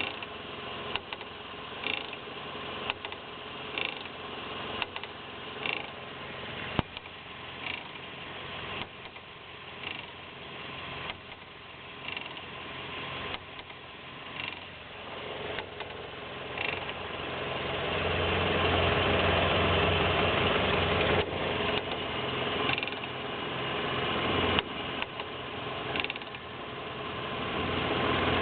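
Toyota Echo brakes making a short chirping squeak about once a second, in step with the wheel turning, under gentle braking. From about two-thirds of the way through, the engine becomes louder and covers the chirps.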